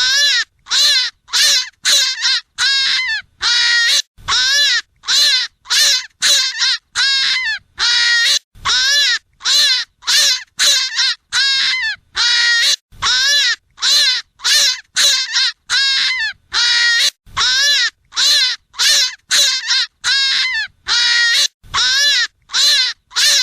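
Hare crying over and over, a fast series of short, high, squealing calls about two a second, each rising and then falling in pitch.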